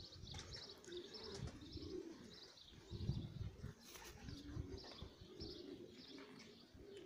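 Racing pigeons cooing, a series of low repeated coos, with faint high chirps of small birds over them.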